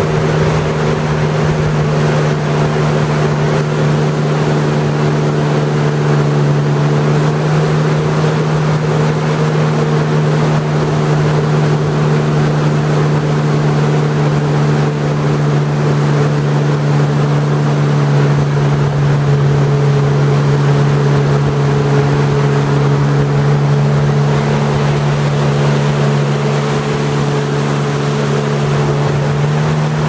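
Jet ski engine running steadily while cruising, a continuous low drone with a slight dip in pitch about halfway through.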